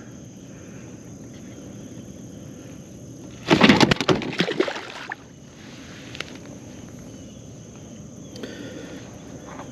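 A big bass thrashing loose from the angler's grip: a sudden burst of rapid slaps and splashes lasting about a second and a half, starting about three and a half seconds in.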